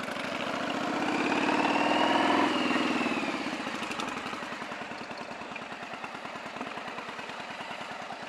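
Yamaha Virago 750 V-twin motorcycle engine running. It grows louder over the first two seconds or so and then settles back to a steadier, lower run, with a faint high whine rising and falling over the louder part.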